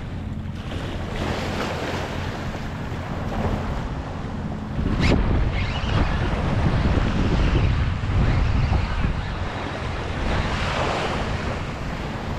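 Wind buffeting the microphone over the rush of waves, louder in gusts through the middle, with a brief sharp sound about five seconds in.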